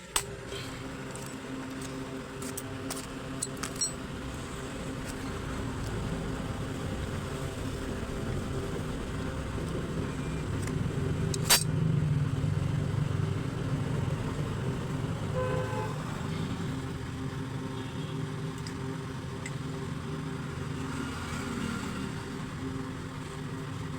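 Steady motor-traffic noise, with a few light clicks early on, a sharp knock near the middle and a brief toot about two-thirds of the way through.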